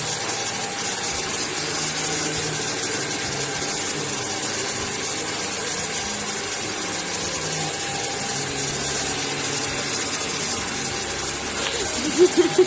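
Handheld hair dryer blowing steadily, a constant airy rush of motor and fan noise.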